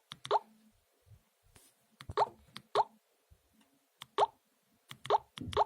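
BQ 2431 mobile phone playing a water-drop style ringtone: about six short plops, each a quick upward blip in pitch, irregularly spaced with gaps between.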